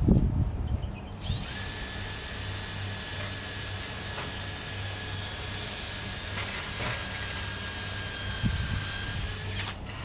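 Electric power drill spinning up about a second in and running steadily with a high whine, then cutting off just before the end.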